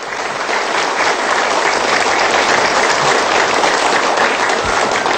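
Studio audience applauding, building up in the first second and then holding steady.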